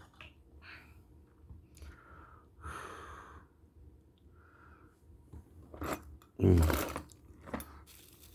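Small metal assembly hardware (bolts, nuts and washers) being handled and sorted, with soft clicks and rustles, and a louder short handling noise about six and a half seconds in.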